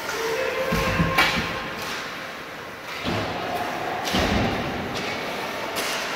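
Thuds of play on a basketball gym floor, about one, three and four seconds in, with a sharper knock just after the first, and a few short squeaky tones between them.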